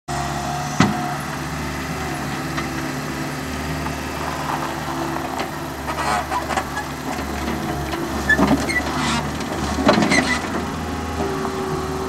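Skid steer loader's engine running steadily as the machine grades and drives. A sharp knock comes about a second in, and scattered knocks and rattles follow in the second half.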